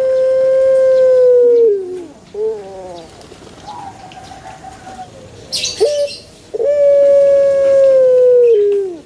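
Puter turtle dove of the long-voiced 'pelung' type cooing: two long, steady held coos of about two seconds each, each dropping in pitch at the end, with short falling notes between them. A brief rustle comes about halfway.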